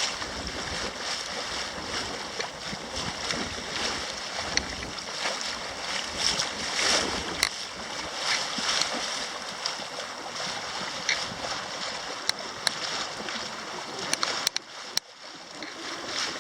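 Water rushing along the hull of a yacht under way, with wind buffeting the microphone. A few sharp clicks come near the end.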